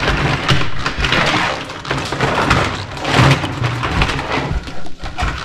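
Plastic toy guns clattering and scraping against each other as they are lifted out of a heap, in several rustling swells.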